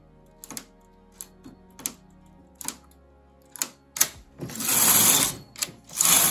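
Brother domestic knitting machine: a few sharp clicks as needles are pushed forward along the metal needle bed. Then the carriage is run across the bed twice, each pass a loud rushing clatter lasting about a second, the first a little after four seconds in and the second near the end.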